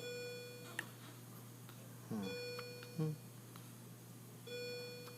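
A steady electronic beeping tone over a constant low hum; the tone drops out about two seconds in and comes back near the end. A person hums a soft "mm" about three seconds in.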